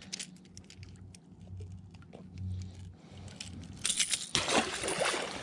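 Light metallic clicks and rattles from a metal fish lip-grip tool holding a small fish. About four seconds in there is a brief splashy rush as the fish is let go and drops into the water.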